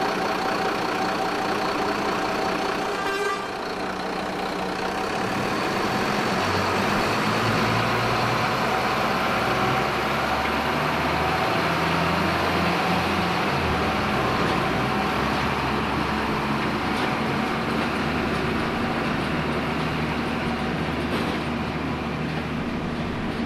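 Two coupled diesel sugar-cane locomotives on narrow-gauge track pulling away, their engines running under load. A horn sounds a steady chord for about the first three seconds, then the engines rise in pitch and change note from about six seconds as they move off.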